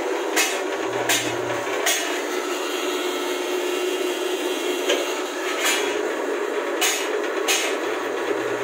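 One-bag mortar mixer driven by a 7.5 hp single-phase electric motor, running with its drum empty: a steady machine hum with several sharp metallic clanks at irregular intervals.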